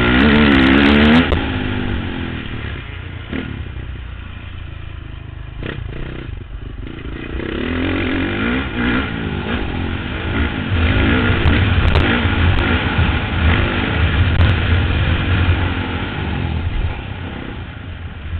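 Motocross bike engine racing, heard from on the bike itself: revving hard in the first second, dropping off throttle for several seconds with a few knocks, then pulling hard again, loudest about two-thirds of the way in, and easing near the end.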